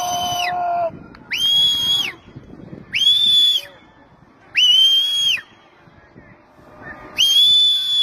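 A whistle blown in five long blasts about a second apart, each a steady high note. The last blast is the longest and comes after a longer gap.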